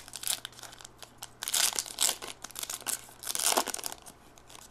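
Plastic trading-card packaging crinkled and torn open by hand, with two louder bouts of crinkling, about a second and a half and three and a half seconds in, and small crackles between them.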